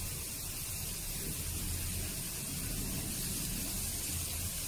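Chopped onions frying in hot oil in a nonstick wok, a steady sizzling hiss, with a wooden spatula stirring them.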